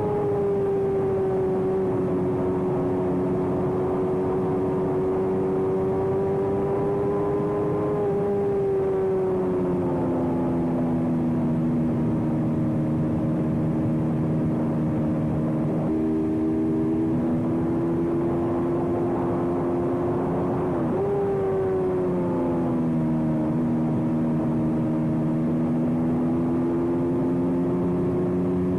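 Race motorcycle engine running hard at a fairly steady high pitch that drifts with throttle. The pitch steps down about eight seconds in and jumps up then falls again near twenty-one seconds.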